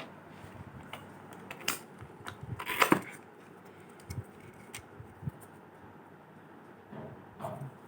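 Handling of a smartphone and its case: scattered small clicks and taps, with a louder rustle about three seconds in.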